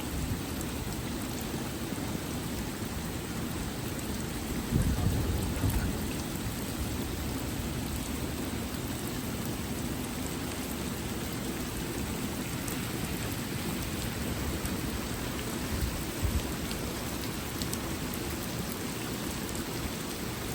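Rain falling steadily in a thunderstorm, with a low rumble of thunder about five seconds in and a shorter one a little after the middle.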